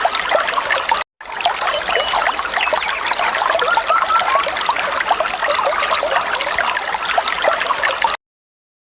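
Falling water trickling and splashing in a steady, dense patter. It drops out for an instant about a second in and cuts off abruptly near the end.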